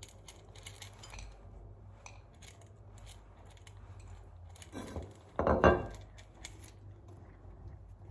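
Small clicks of a cat eating from a metal food bowl, and about five and a half seconds in a short, louder clatter of ceramic dishes being shifted on the wooden floor beside it.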